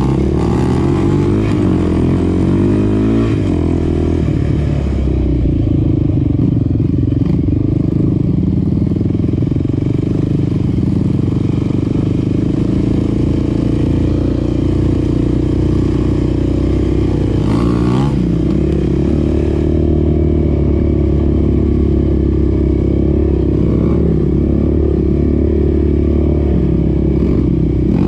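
Sport ATV's single-cylinder four-stroke engine running under way. Its pitch shifts with the throttle in the first few seconds and again about eighteen seconds in.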